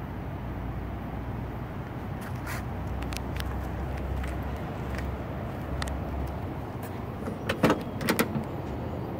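A car door being opened, with two quick clusters of sharp latch clicks a little before the end, over a steady low rumble.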